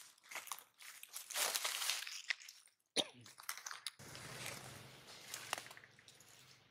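Dry leaves and twigs crackling and rustling in irregular bursts. After a sharp click and a short gap, quieter faint rustles continue over a low steady hum from about four seconds in.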